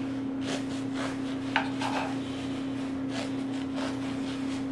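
Serrated bread knife sawing back and forth through a soft-crusted loaf on a wooden cutting board, in repeated strokes, with a light tap about one and a half seconds in.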